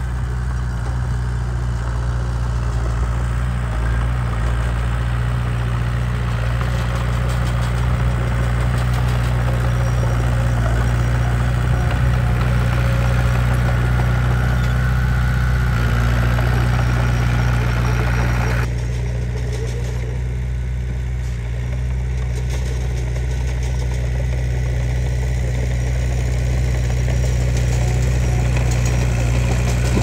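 Diesel engine of a small crawler bulldozer running steadily as it pushes dirt, a low even engine hum. About two-thirds of the way through, the higher sounds drop away suddenly and the sound turns duller, while a steady engine hum goes on.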